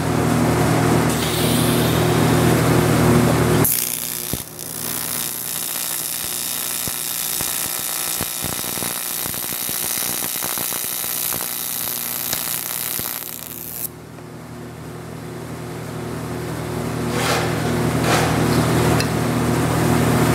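TIG welding arc on an aluminum forging, a steady buzz and hiss while filler rod is fed into the weld. The sound changes abruptly about four seconds in, from a strong low buzz to a hiss, drops back about fourteen seconds in, then builds again.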